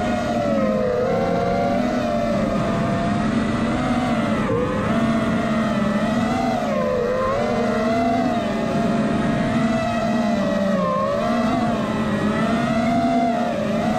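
Electric motors of the Apex radio-controlled aircraft in flight, a continuous whine whose pitch keeps rising and falling with the throttle.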